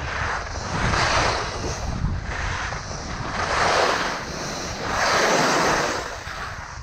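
Skis carving turns on firm groomed snow: a scraping swish that swells and fades with each turn, five or six times, dropping away near the end. Wind buffets the camera microphone throughout.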